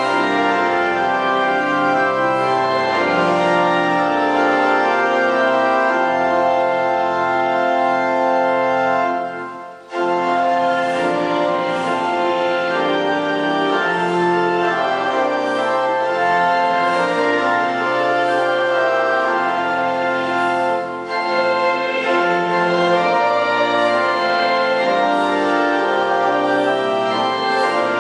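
Church organ playing a slow piece in sustained chords, with a brief break about ten seconds in and a shorter dip about twenty-one seconds in, between phrases.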